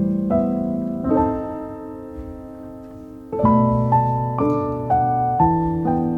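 Soft solo piano background music: gentle chords and single notes, one chord left to ring and fade for about two seconds before the playing picks up again.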